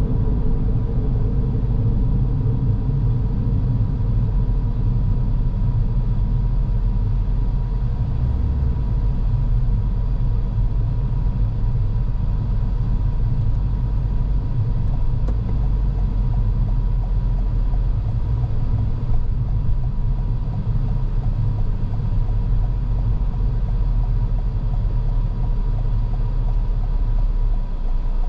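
A car driving, recorded from the car: a steady low rumble of engine and road noise, with a faint steady tone running under it.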